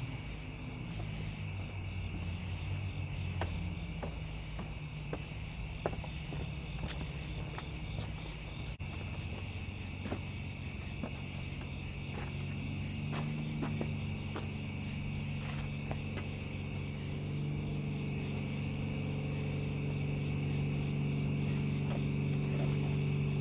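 Night chorus of crickets and other insects, a steady high-pitched drone. A low steady hum lies underneath, and scattered light clicks and knocks come as the plane is handled.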